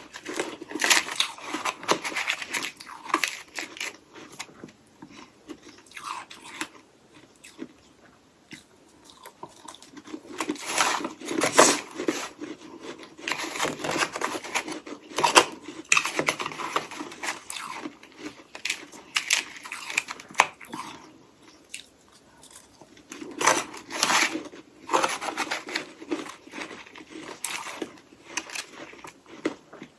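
Close-miked crunching and chewing of frost-coated hollow ice sticks, with bursts of sharp crackly bites separated by a few quieter pauses.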